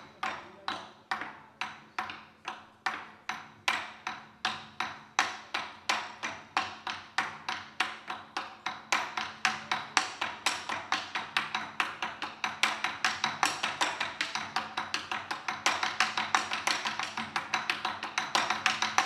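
Two Chinese drums (tanggu) beaten with wooden sticks in a steady, even rhythm of sharp, light strokes, about three a second at first and quickening into a denser pattern about halfway in.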